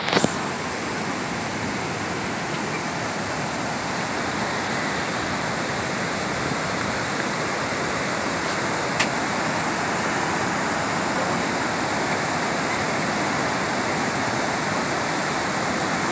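Steady rushing roar of the water at Niagara Falls, a constant even hiss with no rise or fall. A single short click about nine seconds in.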